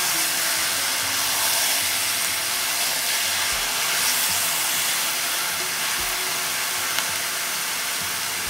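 Beef shank chunks, ginger and onion sizzling steadily in a hot enameled cast-iron pot as they are stir-fried with a spatula, searing the meat until its surface browns.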